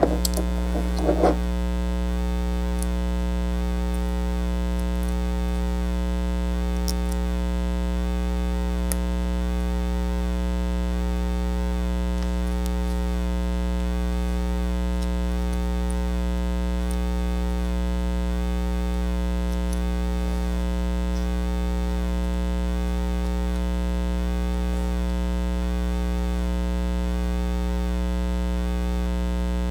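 Steady electrical mains hum, a buzz with a dense stack of overtones, with a brief clatter about a second in.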